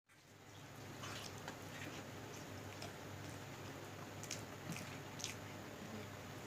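Faint wet mouth clicks and smacks of someone eating, scattered over a steady low hum.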